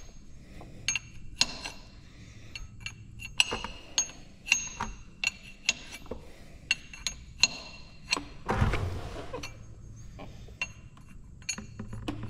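Steel wrench clinking against a drain plug in the bottom of a truck's tank while the plug is worked loose: a string of sharp metallic clinks, each ringing briefly, about one or two a second. About two-thirds of the way through there is about a second of rustling scrape.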